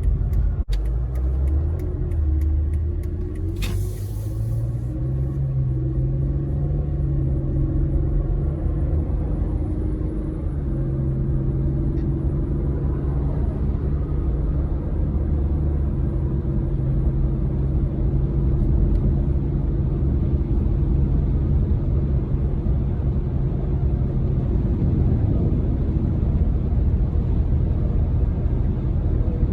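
2004 BMW 325ci's inline-six engine pulling the car along with road rumble: its pitch rises over the first few seconds as it accelerates, then holds steady at a cruise. A brief hiss comes in about four seconds in.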